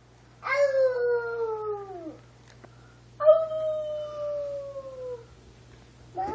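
Two long howls, the second starting about three seconds after the first, each holding a fairly high pitch and sliding slowly downward as it fades.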